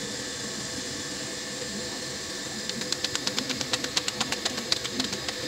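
Roti dough slapped flat between the palms by hand: a quick, even run of slaps, several a second, starting about halfway through. Under it runs the steady hiss of a lit gas stove burner.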